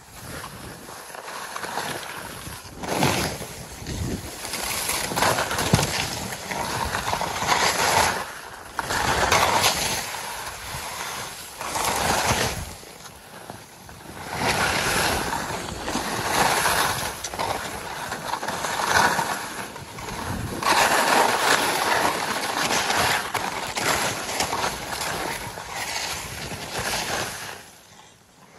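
Downhill skis hissing and scraping through chopped-up snow, the rushing noise rising and falling in swells every few seconds.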